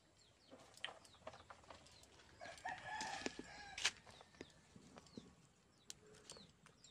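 A rooster crowing once, starting about two and a half seconds in and lasting about a second and a half, with small birds chirping high and thin around it and a few light clicks.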